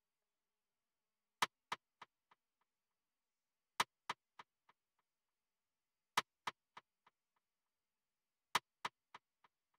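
A single snare drum sample played back four times, about every two and a half seconds. Each hit is followed by three or four fading delay echoes about a third of a second apart, from a parallel Fruity Delay send with its dry signal turned down.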